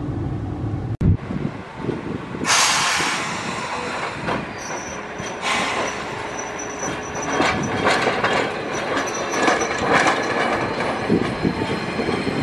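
Single-car electric streetcar passing close on street track. Its wheels run on the rails from about two seconds in, with a thin high wheel squeal coming and going.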